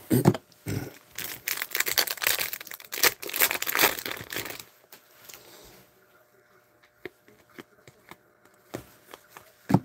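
Foil hockey card pack being torn open, its wrapper crinkling and crackling for a few seconds, followed by a few faint clicks as the stack of cards is handled.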